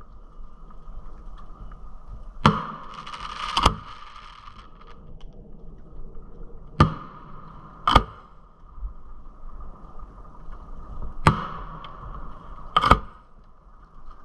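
Aerial firework shells fired one after another: three times a sharp launch thump is followed a second or so later by the bang of the shell bursting, with a brief crackle after some of them.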